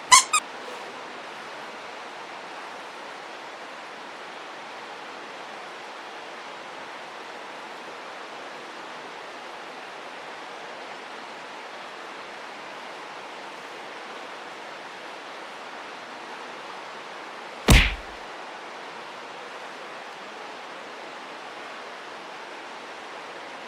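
A steady, even rushing noise, with two sharp clicks right at the start and one loud, short knock about eighteen seconds in.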